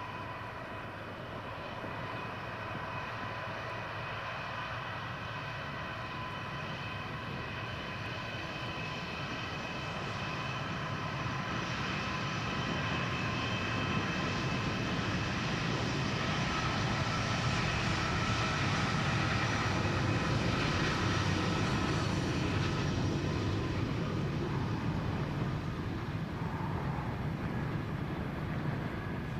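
Four NR class diesel-electric locomotives approaching and passing, their engines running with steady high tones over them, getting louder to a peak about twenty seconds in. After that the high tones fade and the freight wagons roll by.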